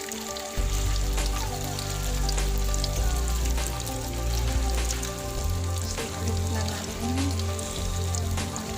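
Hot oil sizzling and crackling steadily as battered quail eggs (kwek-kwek) deep-fry, over background music whose bass line comes in about half a second in.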